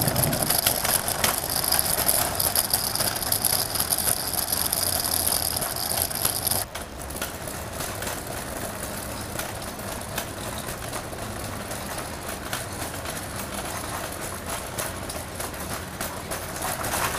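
City street traffic noise. A steady high whine sits over it for about the first seven seconds, then cuts off abruptly, leaving a quieter, even street hum.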